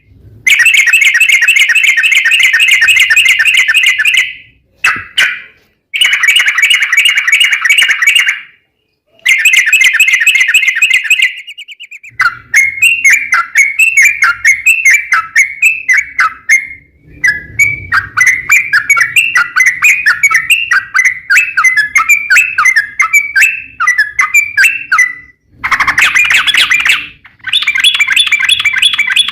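Yellow-vented bulbul (trucuk) song, loud and fast: long rapid trills in bursts of a few seconds with short breaks between them. In the middle comes a long run of quick, bubbly repeated chirps, and another long trill near the end.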